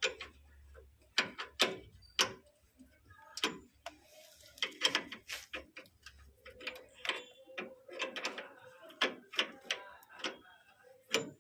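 Irregular sharp clicks and taps, unevenly spaced at one to three a second, with a faint low hum under the first few seconds.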